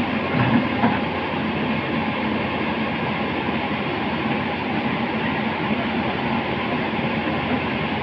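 Tata Hitachi tracked excavator running under load as it climbs onto a flatbed trailer: a steady diesel engine drone mixed with the clatter of its steel tracks, a little louder about half a second in.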